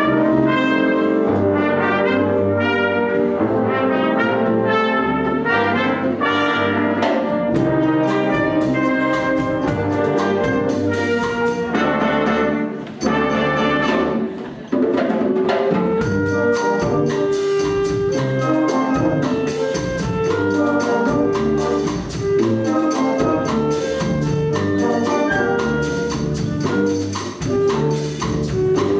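Concert wind band playing a Cuban-style piece, brass and woodwinds together in sustained chords and runs. About halfway through, percussion comes in with a steady beat.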